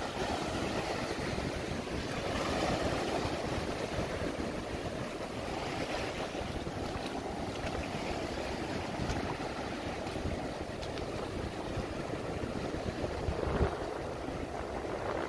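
Ocean surf washing steadily over a shallow reef flat, with wind buffeting the microphone, and a short thump near the end.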